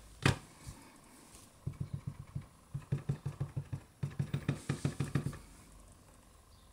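Clear acrylic stamp block tapped again and again on an ink pad to ink the rubber stamp: runs of quick, soft, low thuds, about six a second, in three bursts after a single sharp click near the start.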